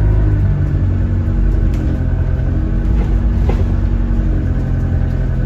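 A bus engine runs with a steady low drone, heard from inside the passenger saloon. There are a couple of brief knocks or rattles from the bus's fittings.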